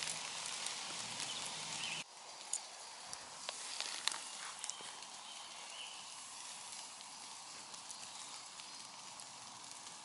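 Faint campfire crackle of wet wood under a steady hiss, with scattered sharp pops and ticks. The background hiss drops abruptly about two seconds in.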